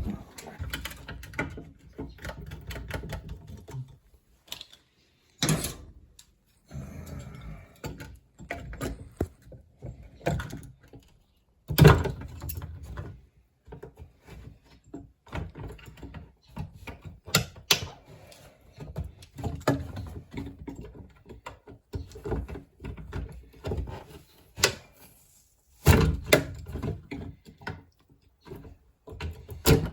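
Irregular knocks, thuds and scraping from hand tools working on drywall, coming in uneven bursts with short pauses.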